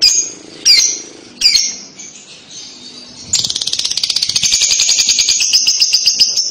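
A Fischer's lovebird gives three sharp calls that slide down in pitch. A little past halfway it breaks into its long, rapid chattering trill, the 'ngekek' song of a lovebird.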